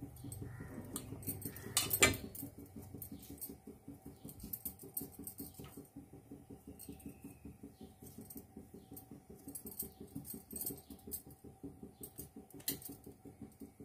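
Soft dough being handled and pushed by hand into a stainless steel murukku press tube over a steel bowl: many small scrapes and clicks, with a sharper metal knock about two seconds in and another near the end.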